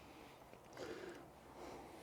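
Near silence with faint, soft swells of breathing close to the microphone.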